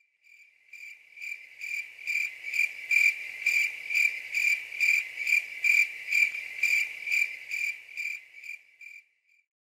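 Crickets chirping as a sound effect: a high trill pulsing about twice a second, fading in just after the start and out near the end. It is the stock "crickets" gag that stands for an awkward silence.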